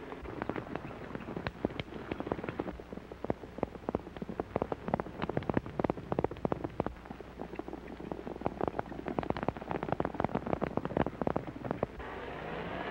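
Hoofbeats of a galloping horse on hard ground: a quick, irregular clatter of sharp strikes that stops shortly before the end.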